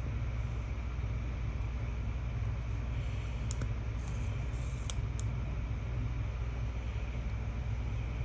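Steady low hum of a fan or similar machine in a small room, with a few light clicks and a brief hiss about halfway through.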